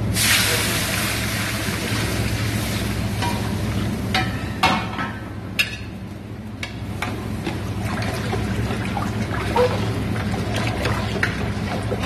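Water poured into a large stainless steel stockpot over browned chicken bones and vegetables, a rush that starts suddenly and fades over the first few seconds, adding the water for a stock. A metal ladle then stirs and knocks against the pot several times, over a steady low hum.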